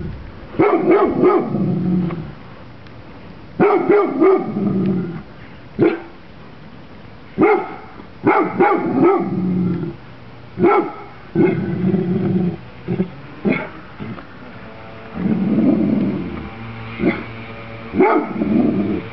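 A large dog barking in repeated volleys, with lower growls between them: warning barks aimed at garden ornaments it treats as intruders.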